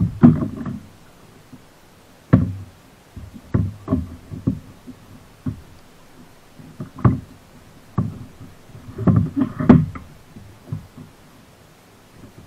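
Irregular knocks and dull thumps on a fishing kayak's hull as the paddle is laid down and gear is handled aboard, with a tight cluster of them about nine seconds in.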